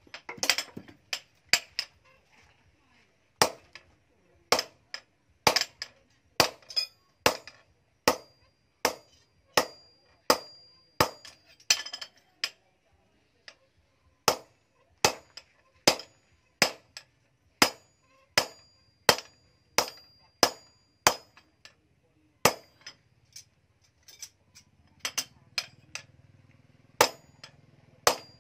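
Sledgehammer blows on a hot axe head held in tongs on a small anvil during hand forging, struck steadily about once every three-quarters of a second with two short pauses. A high ringing tone carries on between some of the blows.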